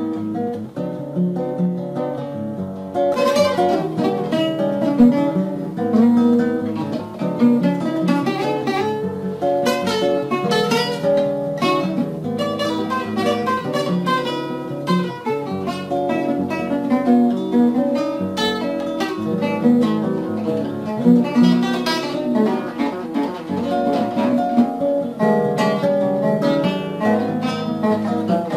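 Acoustic guitar being played, strummed chords mixed with picked notes in a flamenco-like style, getting brighter about three seconds in.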